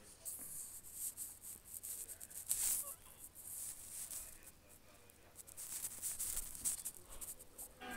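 Rustling and scraping of a blanket against the phone as it is handled and moved about, in quick irregular bursts.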